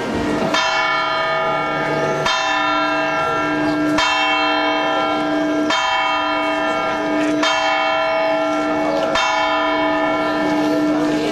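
Church bell ringing in a slow, even toll: six strokes about every second and a half to two seconds, each ringing on into the next.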